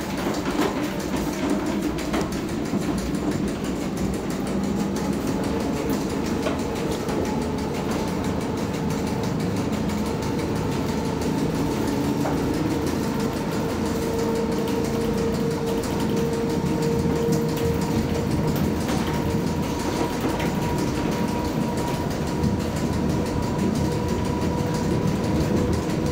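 Electric rack-railway car of the Vitznau–Rigi cogwheel line running on the mountain track: a steady rumble from inside the wooden car, with a steady whine in two pitches from its drive.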